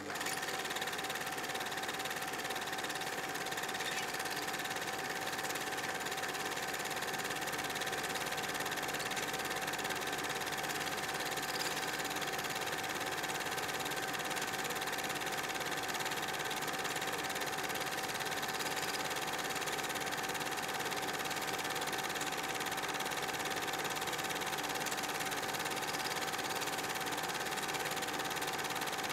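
An 8 mm film projector running: a steady mechanical whirr with a constant hum, unchanging throughout.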